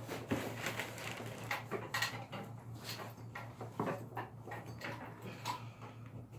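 Scattered small clicks, knocks and rustles over a steady low hum.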